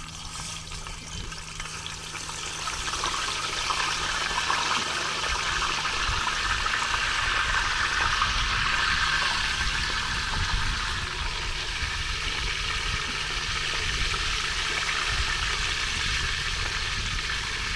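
Seasoned sea bass frying in hot oil in a pan, a steady sizzle that grows louder over the first few seconds as the fish goes in.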